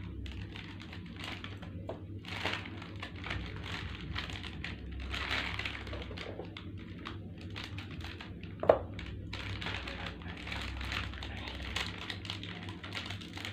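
A plastic snack packet being handled and opened: irregular crinkling and rustling with small clicks, and one sharper, louder click about two-thirds of the way through.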